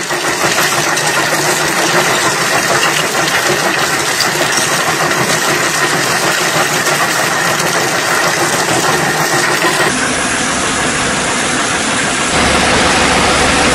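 A running spring cone crusher with rock pouring into its crushing chamber makes a loud, dense, steady noise of stone and machinery. The sound changes abruptly about ten seconds in, and a low steady hum comes in shortly after.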